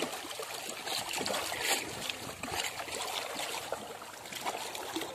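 Water sloshing and trickling as a fishing net is hauled in through shallow water, with several sharper splashes along the way.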